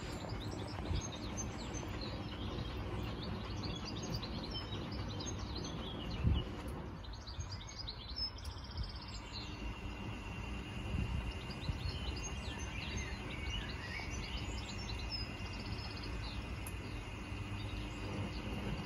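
Bosch and Siemens front-loading washing machines running a wash cycle, their drums tumbling wet laundry with a steady low churn, one thump about six seconds in. Small birds chirp over it throughout.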